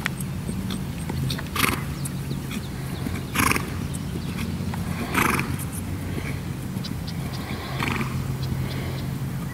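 A Trakehner mare under saddle blowing out hard through her nostrils four times, about two seconds apart, over a steady low hum.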